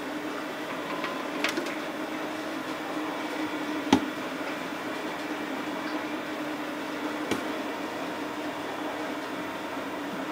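Steady hum of food-factory machinery, broken by three sharp knocks; the loudest comes about four seconds in.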